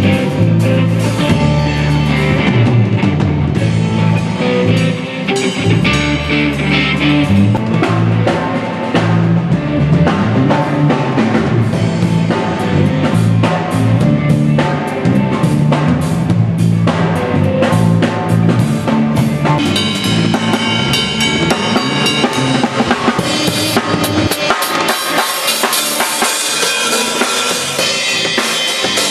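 Band soundcheck: a drum kit playing a beat with kick and snare, over bass guitar notes; the bass stops about three-quarters of the way through while the drums play on.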